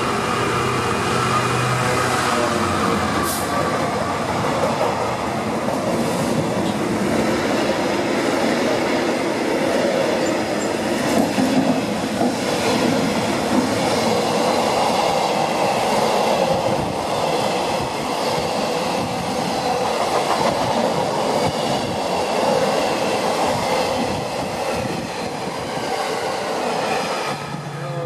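DB Cargo Class 66 diesel freight locomotive passing at speed, its engine note heard in the first couple of seconds, followed by a long train of loaded covered freight wagons running past close by. The wheels rumble steadily over the rails, with a few louder knocks around the middle.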